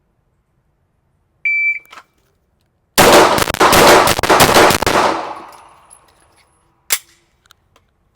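A shot timer's high start beep, then about a second and a half later a rapid string of shots from a Glock 34 9mm pistol, fired in about two seconds as a Bill Drill, with the reverberation dying away after. A single sharp knock comes near the end.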